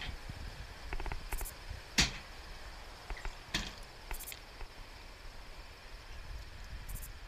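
A handful of sharp clicks and knocks from a pickup's canopy rear hatch being shut and locked with a key, the loudest knock about two seconds in.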